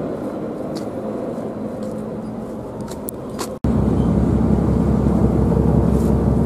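Steady outdoor background hum, then a sudden cut about three and a half seconds in to a louder, steady low rumble on board the JR Miyajima ferry under way.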